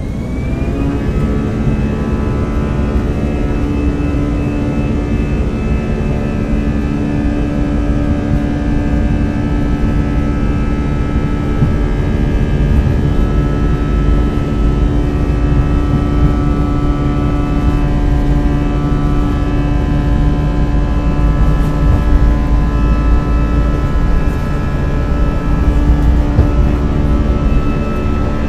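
Airbus A320 jet engines spooling up to takeoff thrust with a rising whine in the first second, then a steady buzzing drone of many stacked fan tones over the low rumble of the takeoff roll, heard from inside the cabin beside the wing.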